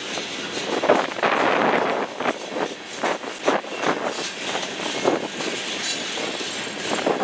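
Freight cars of a passing train, tank cars then boxcars, rolling by: a steady rush of wheels on rail broken by irregular clanks and clacks.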